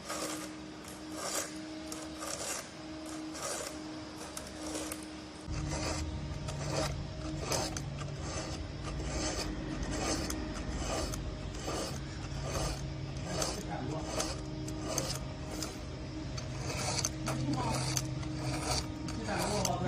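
A 5/32-inch diamond-coated round file being drawn across the cutters of a chainsaw chain in repeated scraping strokes, roughly one or two a second.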